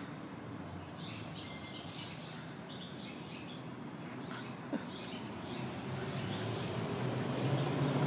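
Small birds chirping in short, scattered calls over a steady low background hum, with a brief click near the middle; the hum grows louder near the end.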